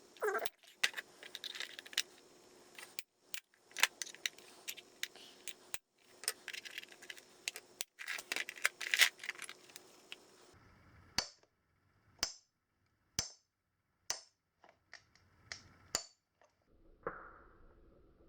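Hammer tapping a chisel-type tool against the spring clip of a 420 motorcycle chain's master link, trying to knock the clip off: sharp metal clicks and rattles for the first ten seconds, then single light taps about once a second.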